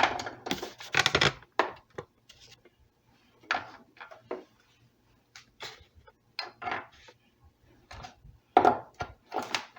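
Small wooden pieces being handled and set against an acoustic bass guitar's wooden body: a string of short, irregular knocks and clatters.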